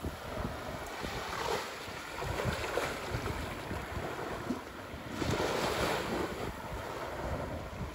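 Small waves washing in over the sand at the foot of a sea wall with the tide in, swelling and fading, with wind buffeting the microphone.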